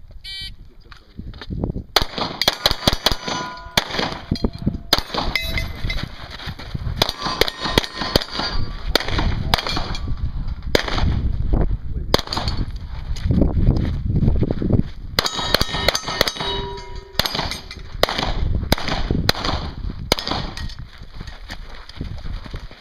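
Pistol shots fired in quick strings at steel targets, starting about two seconds in, with the struck steel plates ringing out in a metallic clang after the hits.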